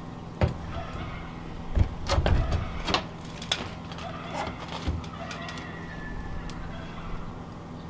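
Metal stovepipe sections clanking and knocking as they are handled and fitted together, a string of separate sharp knocks in the first few seconds and one more about five seconds in.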